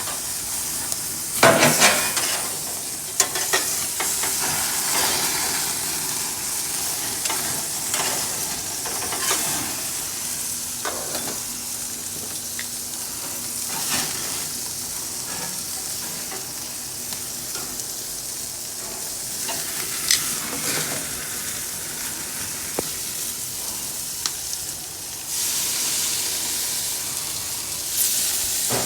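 Steak sizzling as it cooks, a steady hiss that grows louder near the end, with occasional sharp clicks and clatters of cooking utensils.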